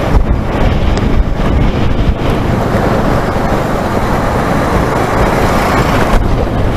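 Wind rushing over the microphone and road noise from a motorcycle riding along at speed. It is a loud, even rush with no clear engine note, and the higher hiss thins out about six seconds in.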